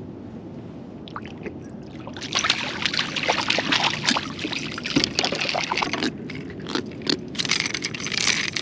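A hooked jack thrashing and splashing at the surface right beside the boat. It comes as a run of quick, choppy splashes starting about two seconds in, with a short lull near six seconds.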